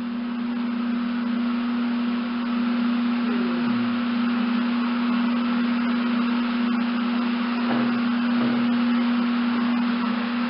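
A steady low hum over a constant hiss.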